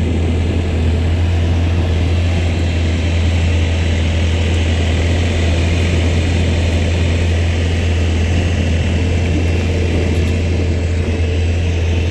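Skid steer engine running steadily at speed as the machine drives, a loud, even low hum with no change in pitch.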